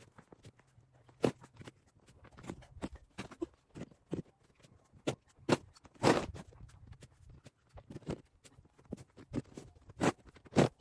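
Deep fresh snow crunching in a series of short, irregular crunches, a few of them sharper and louder, about a second in, around six seconds in and near the end.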